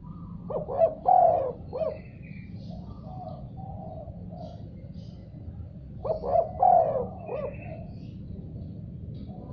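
Spotted dove cooing: a phrase of several quick coos about half a second in, softer coos in the middle, and a second loud phrase about six seconds in, over a steady low hum.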